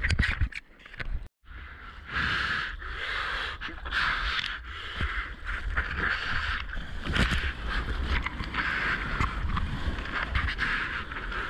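Surf whitewater rushing and splashing around a whitewater kayak, with paddle strokes and wind and water buffeting a GoPro, plus the paddler's heavy breathing swelling and fading about once a second. The audio drops out completely for a moment about a second in.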